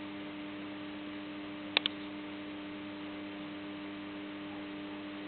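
Steady electrical hum over a background hiss, with two quick sharp clicks close together a little under two seconds in.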